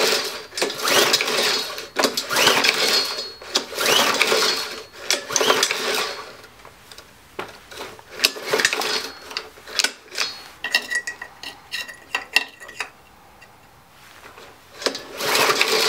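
Honda GCV160 lawn mower engine cranked by its pull-start recoil rope, about five pulls in quick succession, each a whirring rush as the engine spins over without firing. There is no fuel and the spark plug is out for a spark test. After the pulls come lighter clicks and rattles, and there is another pull near the end.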